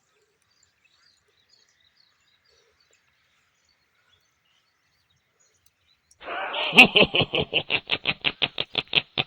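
Near silence for about six seconds, then a person's voice making rapid, rhythmic pulsed sounds, about eight a second.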